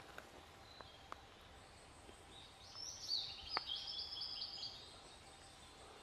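Male blue-and-white flycatcher singing: one high, warbled phrase of quick notes starting a little over two seconds in and lasting about two and a half seconds. A few faint sharp clicks, one of them in the middle of the phrase.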